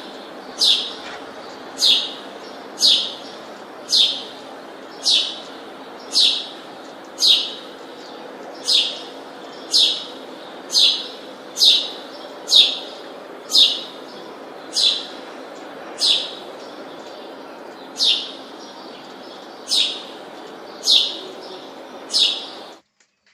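A bird calling over and over, a short, sharp note falling steeply in pitch about once a second, over a steady background hiss. The whole sound starts and cuts off abruptly.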